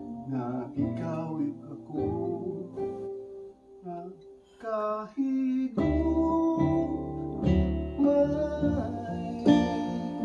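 Acoustic guitar playing with a man singing. The playing becomes fuller and louder about six seconds in.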